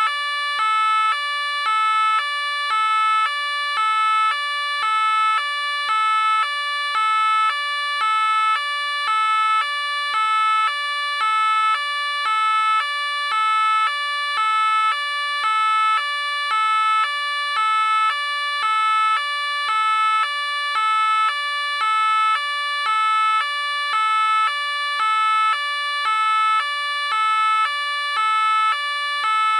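French police car two-tone siren sounding continuously, alternating evenly between a high and a low pitch, about one high-low cycle every second and a third.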